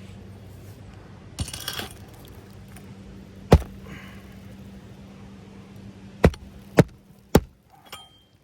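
Sharp knocks of roofing nails being driven into a replacement shingle: one about three and a half seconds in, then three about half a second apart near the end. A short rustle comes before them, over a steady low hum that fades near the end.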